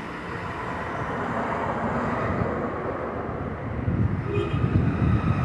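Street traffic noise: a steady rumble of passing cars, growing louder about four seconds in.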